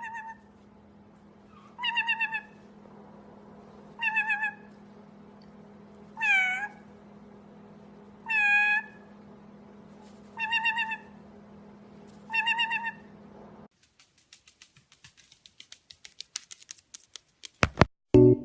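Meowing, seven times, about one call every two seconds over a steady low hum. Later the hum stops and a run of quickening clicks ends in a few loud knocks.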